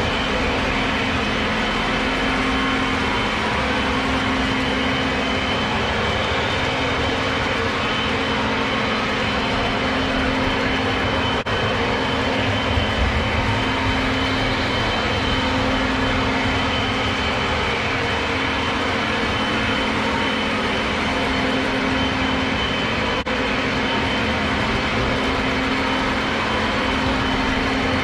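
Several Lionel O gauge model trains running at once: a steady rumble of wheels on the rails and electric motors, with a low hum that comes and goes every couple of seconds.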